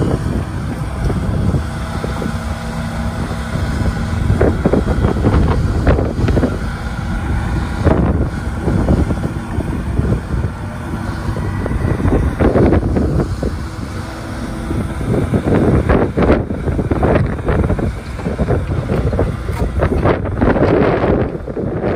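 Hitachi ZX75-3 compact excavator's diesel engine running steadily as the hydraulics swing its boom and bucket, with wind buffeting the microphone in repeated gusts.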